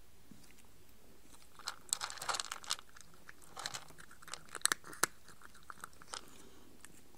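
A cat chewing its food: a run of short, crisp bites in two bunches, the first about two seconds in and the second from about three and a half to six seconds in.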